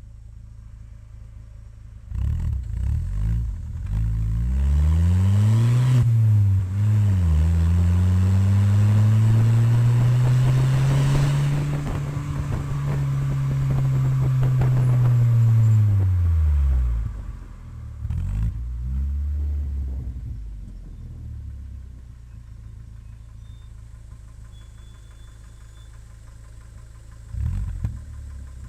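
Chevrolet Vectra engine revved through its modified exhaust: a few short blips from about two seconds in, then a long rev held high for about nine seconds before falling back to idle, with two more short blips later.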